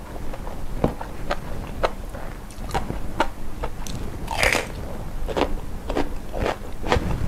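Close-miked mukbang chewing: a quick run of sharp crunches, about two a second, from whole shell-on prawns being bitten and chewed, with one longer, louder crunch about halfway.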